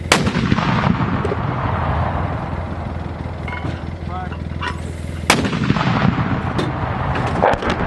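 120mm mortar (BAE M326 mortar system) firing twice, about five seconds apart: each shot is a sudden sharp blast followed by a long rumbling echo.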